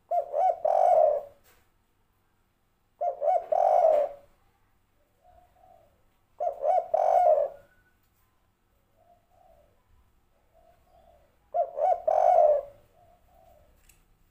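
Spotted dove (tekukur) singing its 'derkuku' coo, four times. Each phrase is a few quick notes followed by a longer final note, and softer short coos fall between the phrases.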